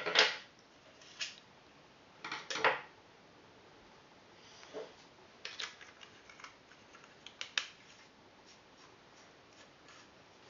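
Clicks and clacks of the parts of an airsoft sniper rifle bolt being handled and fitted together by hand, with several louder knocks in the first three seconds and lighter ticks after.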